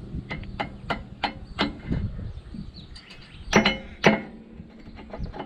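Metal clicks and clinks of a spanner working the hydraulic hose fitting on a disc plough's ram: a run of sharp clicks about three a second for the first couple of seconds, then two louder knocks about three and a half and four seconds in.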